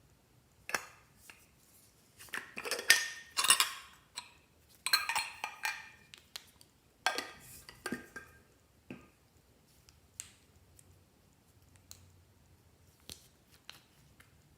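Small hard objects clinking and rattling against a dish or container in several bunched bursts, then a few light, scattered taps.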